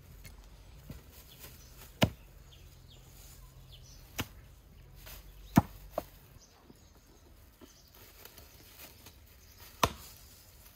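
About five sharp knocks, spaced irregularly, the loudest about halfway through, with a brief crinkle of plastic: raw meat and bone being handled on a wooden table and packed into plastic bags.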